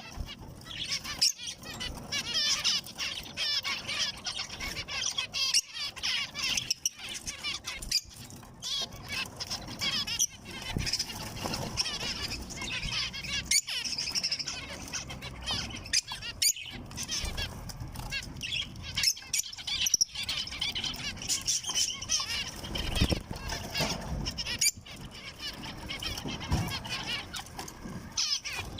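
Zebra finches chirping and calling continuously, many short overlapping calls at once, with frequent short clicks and knocks among them.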